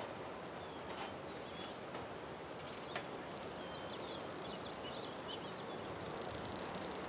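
Countryside ambience: a steady soft background hiss with small birds chirping now and then, the chirps coming in a quick cluster about four to five seconds in, and a few faint clicks.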